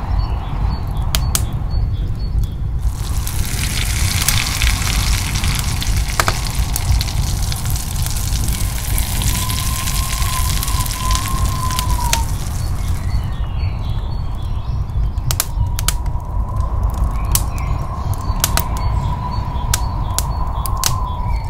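Chopped onion frying in melted butter in a frying pan: a dense sizzle starts about three seconds in and dies away about two-thirds of the way through, with scattered sharp pops. Under it runs a steady low background.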